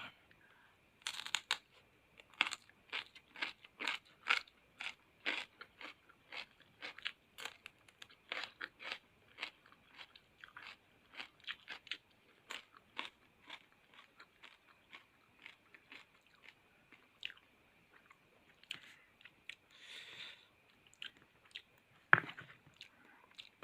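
A person chewing crunchy raw fruit from a rujak close to the microphone, crunching about twice a second. A louder single knock comes near the end.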